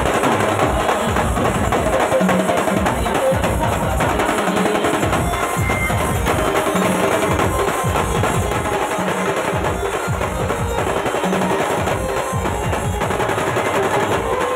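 Live band music led by loud, fast drumming, with snare drum rolls over a bass drum.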